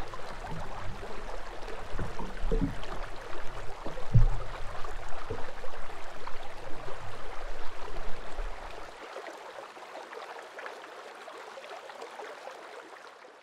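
River water rushing and gurgling, with scattered low thuds. About nine seconds in, the low rumble drops away and the water sound fades out.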